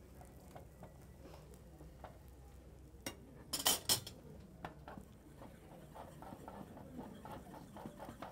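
Metal spoon scraping around the edge of an egg tortilla in a frying pan. About halfway through, the spoon strikes the pan in a quick run of loud metallic clinks. Soft crackling of the cooking tortilla runs underneath.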